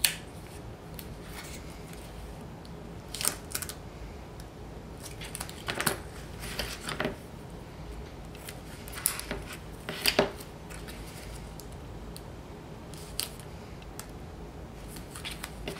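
Double-sided craft tape and a small paper strip being handled on a cutting mat: a series of short, irregular rasps and crinkles as the tape is pulled, pressed down and its backing peeled away.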